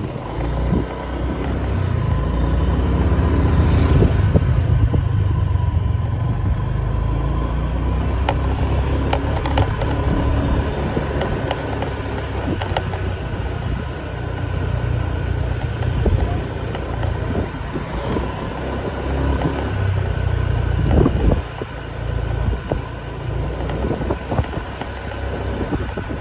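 Wind buffeting the microphone of a moving bike, a steady low rumble, with street traffic and engine noise underneath.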